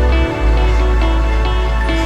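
Background music: held synthesizer notes over a deep bass note, with a brief dip in the bass about a third of a second in.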